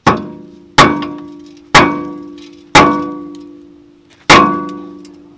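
Five hammer blows on a VW GTI Mk5's rear brake rotor, about a second apart with a longer pause before the last, each leaving the iron disc ringing like a bell as it dies away. The blows are meant to knock the rotor loose from the hub, and it has not come free yet.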